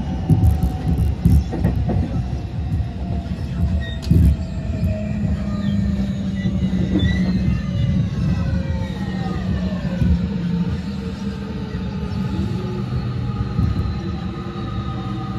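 Tokyu 5050 series train's Hitachi IGBT-VVVF inverter and totally enclosed traction motors, heard from inside the car: the inverter whine falls steadily in pitch as the train slows into a station. Wheels knock over rail joints in the first few seconds.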